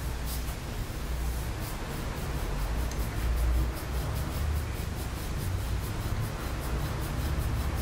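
Stainless steel massage plate scraping over the skin of the shin and calf in short, rapidly repeated strokes: a dry rubbing scrape, the sound of Graston-style self-massage.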